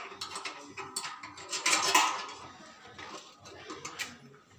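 Small metal parts clinking and clattering as a satellite dish's metal LNB bracket and its fittings are handled, with a louder clatter about two seconds in.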